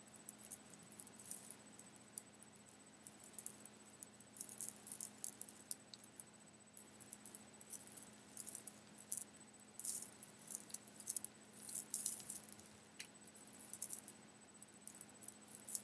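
Silver tinsel garland shaken and scrunched by hand, a soft, irregular crinkling and rustling of thin foil strands.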